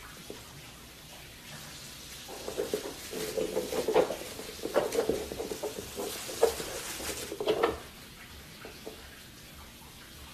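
A mini piglet playing on a blanket, shaking and tossing a tissue: rustling of paper and fabric with scuffs and knocks, in a busy burst of about five seconds in the middle.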